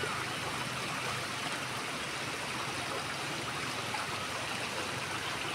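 Shallow rocky river running over stones and pebbles: a steady babble of flowing water.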